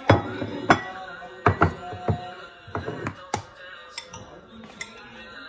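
A glazed ceramic bowl and other dishes knocking and clinking as they are set down on a granite countertop: a string of sharp knocks that thins out after about three and a half seconds. Background music runs underneath.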